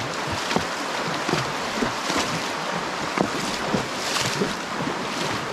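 Rushing water, with irregular short splashes and knocks through it.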